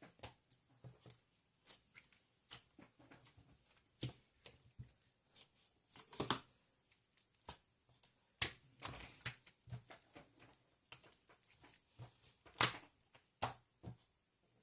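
Irregular small clicks and crunches, sparse and uneven, with a few louder crunches.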